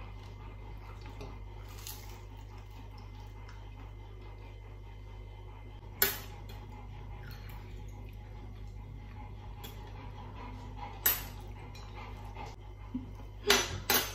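A fork and spoon clinking against a ceramic bowl: a sharp clink about six seconds in, another about eleven seconds in, and a few in quick succession near the end. A steady low hum sounds underneath.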